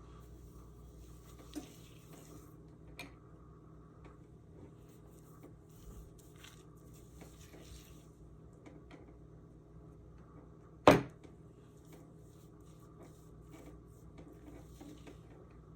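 Faint handling noises, small clicks and rustles over a steady low hum, with one sharp knock about eleven seconds in.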